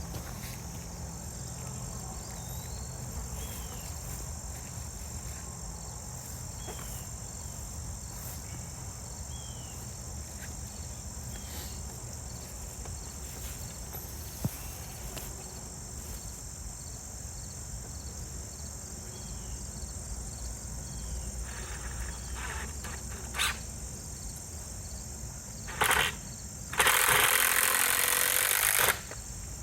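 Steady chorus of crickets and other insects. In the second half come a few sharp knocks, then near the end a loud burst of about two seconds from a cordless power driver driving in a screw.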